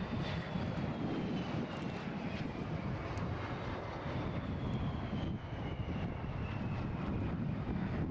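Fixed-wing aircraft engine noise as a plane flies past, a steady rumble with a faint high whine that slowly falls in pitch.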